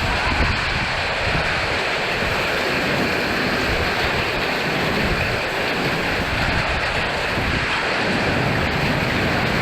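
Summer storm: strong wind blowing steadily with a dense hiss of falling hail, and gusts buffeting the microphone with a low rumble.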